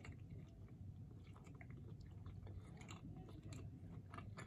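Faint close-miked chewing with the mouth closed: soft, irregular wet clicks of a person working through a mouthful of food, over a low steady hum.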